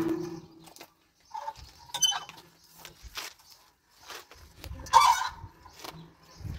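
Hand-cranked well windlass turning slowly while a bucket is lowered on its chain: the axle gives drawn-out squeaks, a loud one near the start and another about five seconds in, among light clinks of the chain links.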